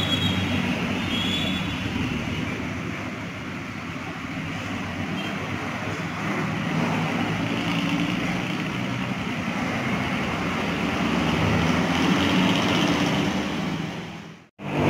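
Vehicle engines and road traffic noise as a box truck pulls away and a minivan drives slowly past close by. The sound cuts off abruptly just before the end.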